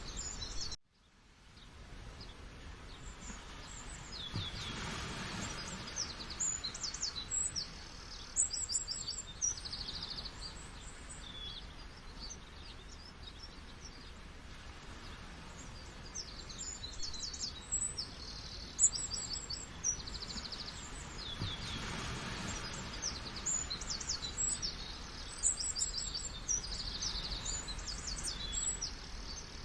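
Many songbirds chirping and trilling in quick, high notes over a steady rush of falling water. About a second in the whole sound cuts out abruptly and fades back in over a few seconds.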